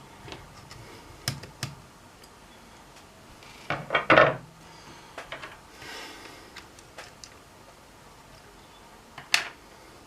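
Handling noises from laptop disassembly: scattered light clicks and taps of plastic parts and tools, a brief cluster of louder knocks and scrapes about four seconds in, and one sharp click near the end.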